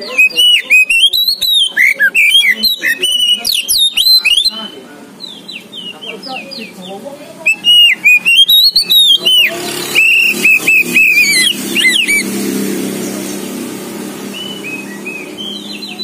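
An Oriental magpie-robin of the black-bellied kacer poci form sings loudly in two bouts of rapid whistled phrases broken by sharp clicks, with a quieter stretch between them. A low steady rumble comes in under the second bout and carries on after the song stops, loudest about two thirds of the way through.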